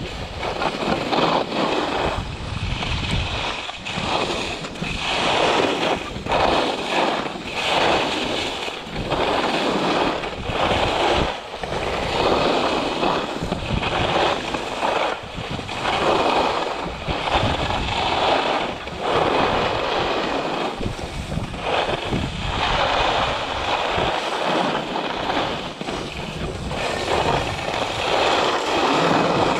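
Skis scraping and carving on packed snow in a series of turns, the hiss swelling with each turn about once a second or so, with wind buffeting the microphone.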